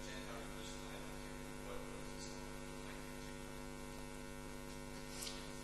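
Steady electrical mains hum with faint room tone, a few faint brief hisses now and then.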